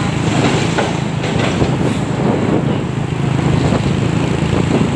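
Traffic and road noise heard from a moving motorcycle passing close alongside a tanker truck: a steady low engine drone under a rough rushing noise, with wind buffeting the microphone.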